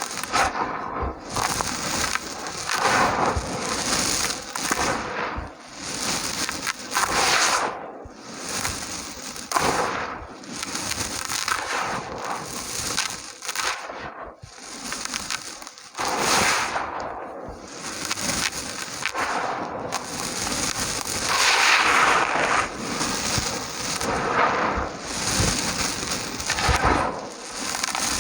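Small dry chunks of red dirt being crumbled, a dense gritty crackling that swells with each squeeze, about one every couple of seconds.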